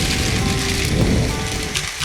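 Background music with a beat, over a loud hissing rush that thins out toward the end.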